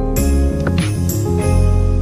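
Instrumental Christmas-style background music: sustained notes over a deep bass, with bright jingling shimmers shortly after it starts and again under a second in.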